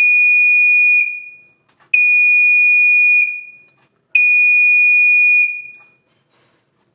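Pyrotector 30-77ARF5 photoelectric smoke alarm's 'Star Buzzer' piezo horn sounding its alarm in three long, steady beeps, each ending in a short fading ring. The tone is unusually low-pitched for a smoke alarm horn.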